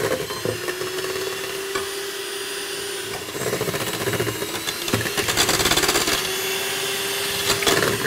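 Electric hand mixer running steadily, its beaters whisking butter, oil, sugar and eggs in a stainless steel bowl. The motor hum gets rougher and louder about three seconds in.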